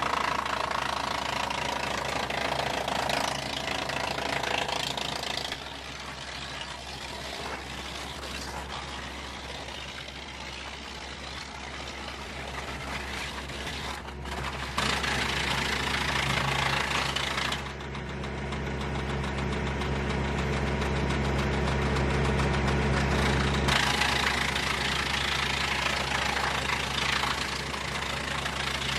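Tractor-powered PTO wood chipper running under a steady engine hum while cedar cutoffs are chipped, the rough chipping noise swelling and fading in several spells as pieces go through.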